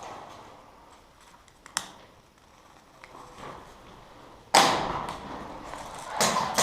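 Airsoft guns firing: a single sharp snap, then a sudden loud burst of shots about four and a half seconds in and another just before the end.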